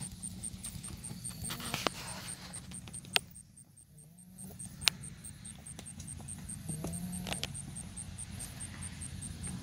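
Tennessee Walking Horse moving along a dirt trail in its saddle gait: soft hoofbeats with a few sharp clicks. A fast, steady high-pitched ticking, about four or five a second, runs under it. The sound briefly drops away about three and a half seconds in.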